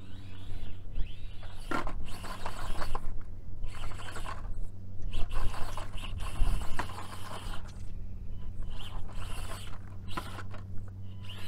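Small 1/24-scale RC rock crawlers driving over logs and concrete near the camera: bursts of scraping and rustling from tyres and chassis, with quieter gaps between, over a steady low hum.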